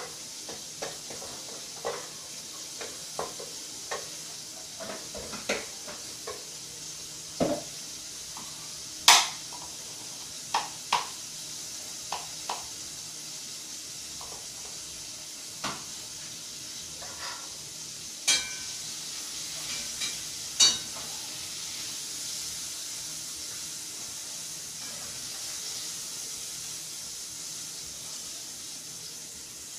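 A flour-and-oil roux, not yet brown, sizzling steadily in a stainless steel pot, with the clicks and scrapes of a wooden spatula stirring it, about one a second in the first half. A few sharper knocks come later, the loudest about nine seconds in.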